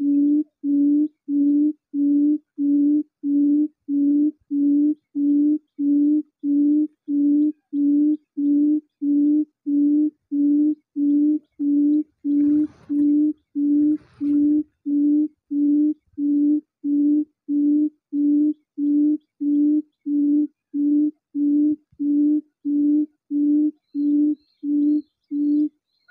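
A recorded low-pitched bird hooting call played on a loop through a Bluetooth speaker as a lure at a bird snare: identical, evenly spaced hoots, about one and a half a second, with a brief faint rustle about halfway through.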